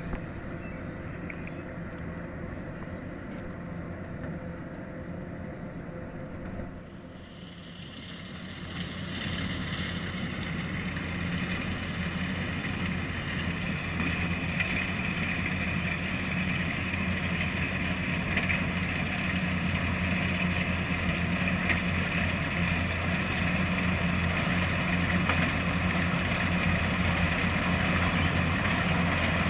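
Kubota DC-105X rice combine harvester running with a steady engine drone. From about seven seconds in it grows louder and fuller as a broad rushing noise joins, and it keeps building gradually.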